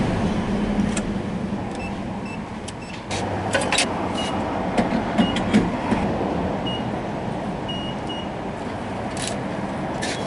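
Gas pump keypad beeping as its buttons are pressed: about eight short, high beeps on one pitch, with a few sharp clicks partway through, over a steady background rumble.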